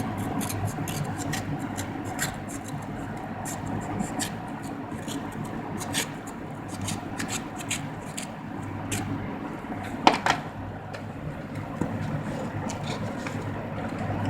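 A promotional CD package being handled and opened by hand: scattered crinkles, rustles and clicks over a steady low hum, with a sharper click about ten seconds in.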